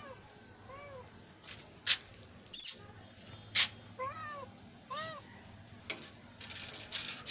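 Domestic cat meowing in short calls, each rising then falling in pitch: two near the start and two about four to five seconds in. Between them come a few sharp high-pitched sounds, the loudest about two and a half seconds in.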